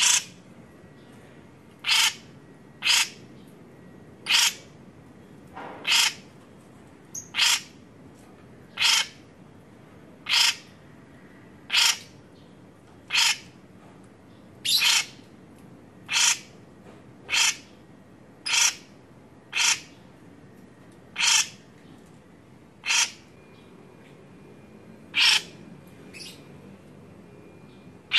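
Cucak jenggot (grey-cheeked bulbul) giving a long series of short, harsh single calls, about one every second and a half.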